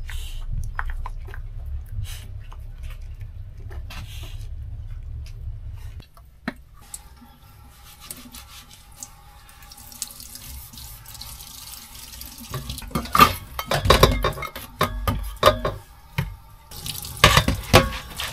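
Dishes washed by hand in a stainless steel sink: the tap runs water, and from about halfway through a metal bowl and pans clatter and knock against the sink. For about the first six seconds there is only a low steady hum with a few faint clicks.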